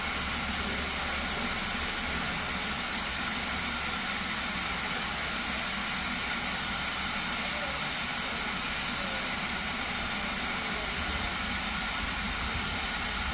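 Fairburn 2-6-4 tank steam locomotive standing at rest with a steady hiss of escaping steam.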